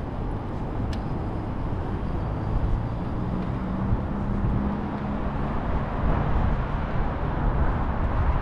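City street traffic: a steady wash of passing vehicles and low rumble, with a low steady hum rising out of it for about two seconds near the middle.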